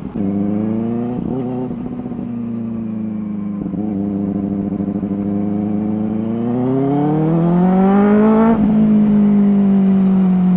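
Benelli 600i's inline-four engine running through dual SC Project slip-on exhausts, heard from the rider's seat while riding. It holds steady revs at first, climbs in pitch from about six and a half seconds in, drops back sharply near the top at about eight and a half seconds, then runs steady again.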